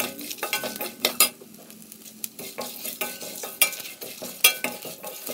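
Slotted stainless steel spatula stirring and scraping whole spices, chillies and shallots around a stainless steel kadai: irregular scrapes and metal clinks with a few sharper clangs, over a light sizzle from the spices roasting on a low flame.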